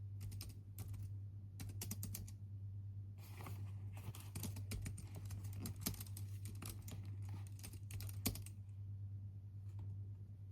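Typing on a computer keyboard: a few short bursts of keystrokes, then a long run of fast typing from about three seconds in that stops about two seconds before the end. A low steady hum sits underneath.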